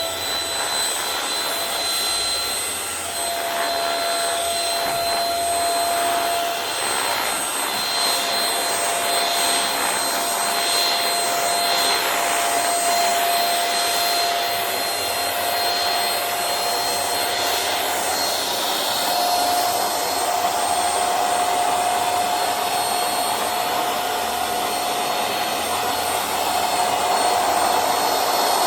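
Silvercrest anti-dust-mite handheld vacuum cleaner running steadily while cleaning a mattress: a high motor whine over rushing airflow. The whine rises slightly in pitch about two-thirds of the way through.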